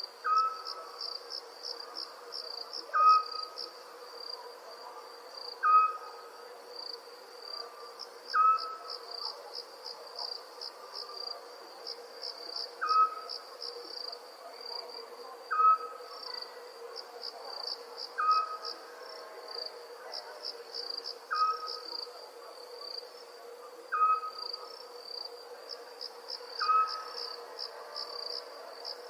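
Night ambience of crickets chirping in a continuous high trill that swells into pulsed bursts, over a steady low hum. A short, clear call repeats about every two and a half to three seconds and is the loudest sound.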